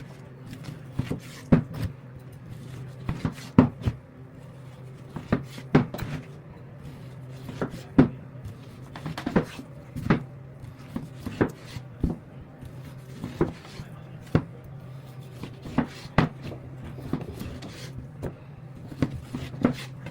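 Butcher's knife and cleaver work on a wooden cutting board: irregular sharp knocks and chops, about one or two a second, over a steady low hum.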